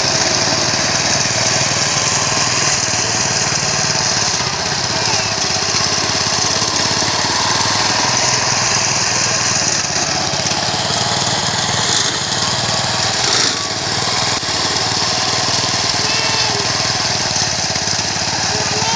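Small engine of a homemade push-type grass cutter running steadily while cutting through thick grass and brush, easing briefly about thirteen seconds in.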